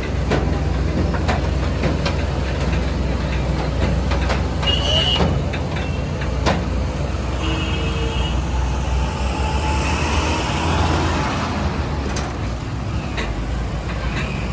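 Roadside traffic noise with a steady low diesel engine rumble from heavy vehicles, broken by short horn beeps about five seconds in and again about eight seconds in, and a vehicle passing close by around ten to eleven seconds in.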